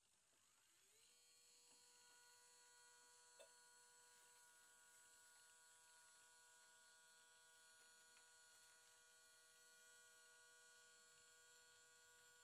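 Faint whine of a small turntable motor rising in pitch over the first second as it spins up, then running at a steady pitch. One soft tick about three and a half seconds in.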